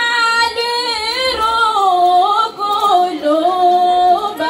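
A woman singing solo into a microphone: a slow line with long held notes and wavering, gliding ornaments between them.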